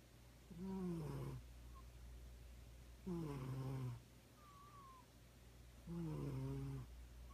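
A sleeping cat snoring: three snores, one about every two and a half seconds, each a pitched, nearly one-second note that sags slightly in pitch. A faint steady low hum runs underneath.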